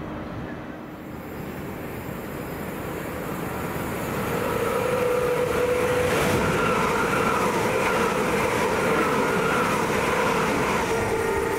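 Train running through the station, getting louder about four seconds in, with a steady whine over the rail noise.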